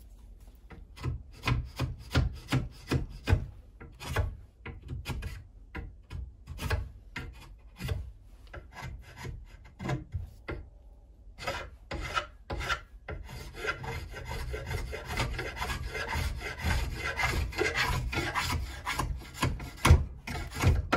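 Draw knife blade being sharpened by hand with a Lansky sharpening puck: rasping strokes of stone on steel. The strokes are spaced out at first, then become fast and almost continuous after a short pause midway.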